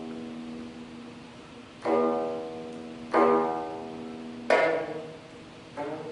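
Geomungo, the Korean six-string zither struck with a bamboo stick, playing four spaced notes about a second and a bit apart. Each has a hard attack and a long ringing decay, and the last note slides slightly up in pitch.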